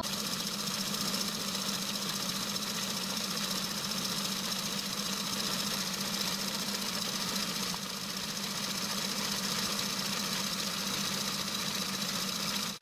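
Small belt-driven micro lathe running under power from its electric motor: a steady, even mechanical hum.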